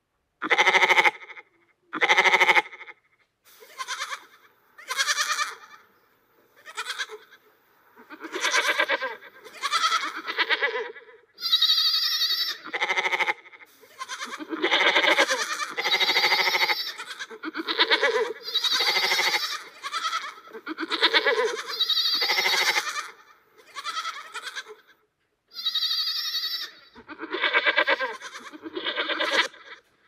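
Goat bleating: a long series of separate calls, each under a second, some higher-pitched than others.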